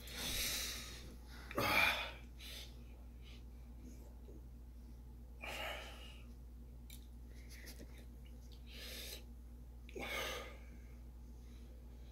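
A man breathing hard through the burn of an extremely hot chili chocolate bar: about five short, noisy breaths and gasps a few seconds apart, the loudest about two seconds in.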